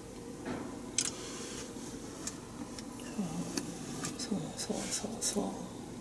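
Steady low hum inside a car's cabin while stopped in traffic, with a sharp click about a second in and scattered lighter clicks later. From about three seconds in, a few short, low, soft voice sounds from the driver.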